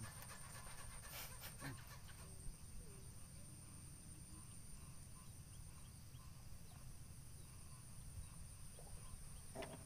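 Quiet open-air ambience: a steady low rumble and a faint high whine, with a few faint distant animal calls.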